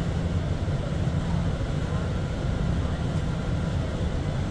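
Steady low rumble and running noise of a rubber-tyred SkyLine people-mover train travelling along its guideway, heard from inside the car.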